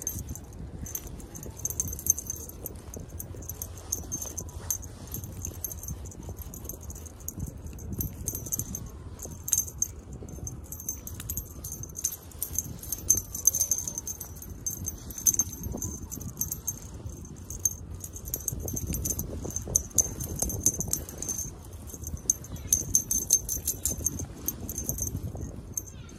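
Small bell on a feather cat-wand toy jingling in quick, irregular bursts as the wand is waved and dragged, over a steady low rumble.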